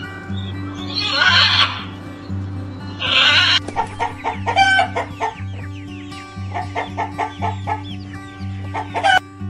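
A flock of white chickens clucking busily, many short calls overlapping, after two harsh squawks in the first few seconds. Steady background music runs underneath.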